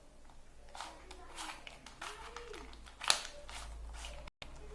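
Plastic Rubik's Cube layers being turned by hand: a run of short clicking, rattling strokes, with one sharp click about three seconds in.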